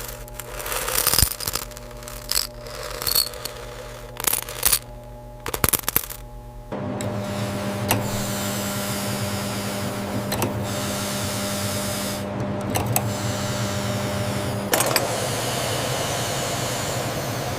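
Factory production-line machinery: a few seconds of irregular clicking and rattling, then a steady mechanical hum with a low held tone that gives way to a noisier steady running sound near the end.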